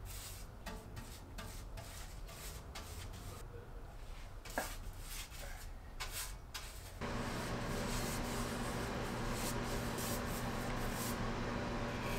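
A paintbrush stroking paint onto a sheet-metal milling machine base, a quick run of short bristle swishes with one sharper knock midway. About seven seconds in, a steady low hum comes in under the continuing brush strokes.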